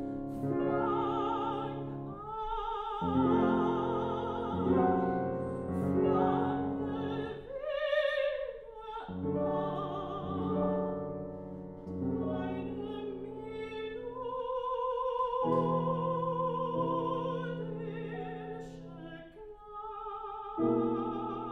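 Soprano singing a German art song with vibrato, in long held phrases, accompanied by a grand piano.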